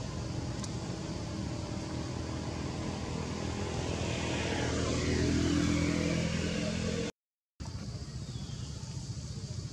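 A motor vehicle's engine runs throughout, swelling louder and passing by about four to six seconds in, its pitch falling as it goes. The sound drops out for a split second about seven seconds in, then the engine hum carries on more quietly.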